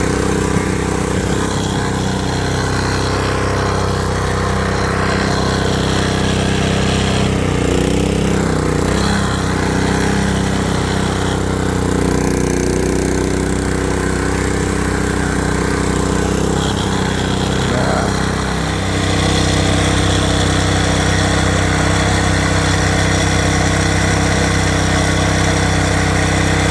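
Small gasoline engine running after being pull-started on its freshly rewound recoil starter, holding a steady note that wavers a little near 8 seconds in and settles slightly louder about 19 seconds in.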